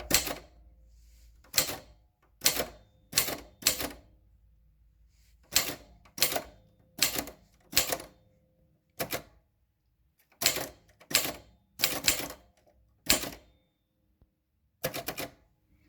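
Remington Starfire portable manual typewriter being typed on slowly, about nineteen separate, unhurried keystrokes, each a sharp clack of the typebar striking the platen.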